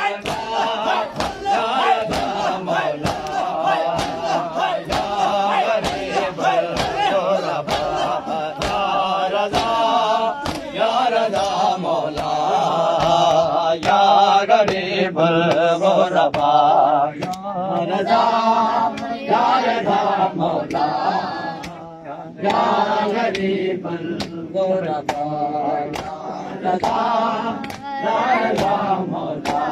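A group of men chanting a Shia noha (lament) together, kept in time by a steady beat of sharp open-hand slaps on the chest (matam). The chanting dips briefly about two-thirds of the way through.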